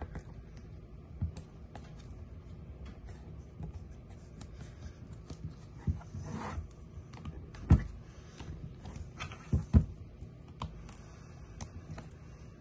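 An OtterBox Defender XT phone case being pressed and worked into place around an iPhone by hand: irregular small clicks, scrapes and rubbing of the case parts, with a few louder knocks of the phone and case against the table in the second half. Fitting it takes some force.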